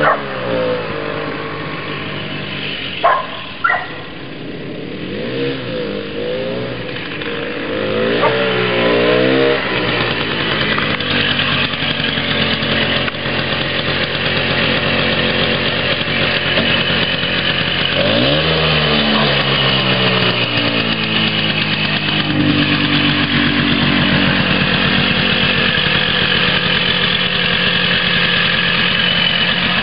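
1968 Vespa 125 Super's two-stroke single-cylinder engine being ridden, its revs rising and falling several times, with two short sharp sounds about three seconds in. Near the end the revs climb once more and then settle into a steady idle.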